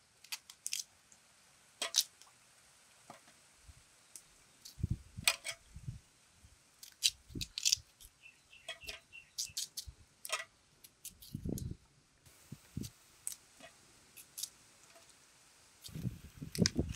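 Kitchen knife cutting peeled cassava roots into sticks: irregular sharp clicks and cracks as the blade cuts through the firm white root, with a few duller thumps now and then.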